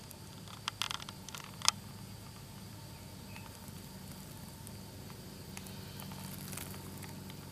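Quiet outdoor background with a faint steady low hum, broken by a short cluster of sharp clicks and rustles about a second in, the loudest near two seconds in: handling noise as the camera is moved close to the ground in grass.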